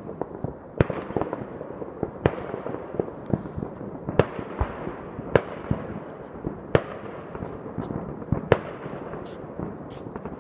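Fireworks and firecrackers going off, sharp bangs at irregular intervals about once a second over a continuous crackling rumble, with thin high crackles toward the end.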